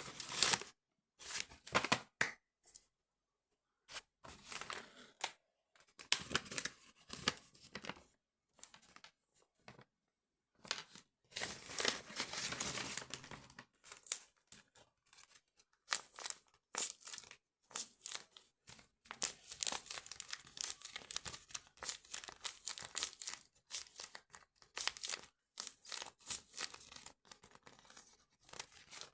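Crisp tearing and crinkling sounds in short, irregular bursts, with a longer unbroken stretch about halfway through.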